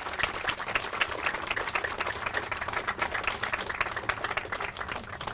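Applause from a small audience: many separate hand claps in a dense, steady patter.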